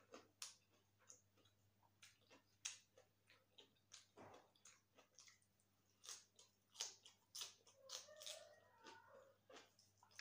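Quiet, close-up chewing and biting of raw green vegetables: a string of crisp crunches and wet mouth clicks.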